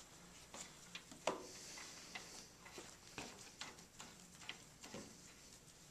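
Faint, irregular light clicks and taps as a leak-down tester's hose fitting is screwed by hand into a small engine's spark-plug hole.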